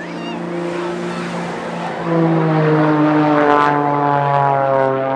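Pitts Special aerobatic biplane's engine and propeller droning overhead. The drone grows louder about two seconds in, then slides slowly down in pitch.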